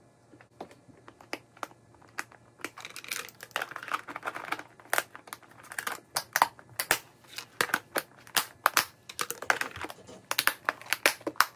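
Plastic meal-prep containers being shut: lids set down and snap-lock clips pressed closed, a long run of irregular sharp clicks and clacks that grows denser about three seconds in.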